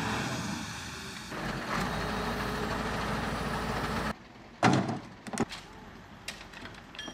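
A crane's engine running steadily at an excavation, a deeper rumble coming in about a second in, then stopping abruptly about four seconds in. After it, one short loud clatter and a few scattered knocks.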